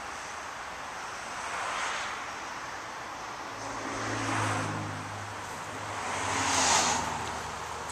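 Road traffic passing by: three vehicles go past one after another, swelling about two seconds in, around four and a half seconds, and near the end, with a low engine drone from a heavier vehicle in the middle.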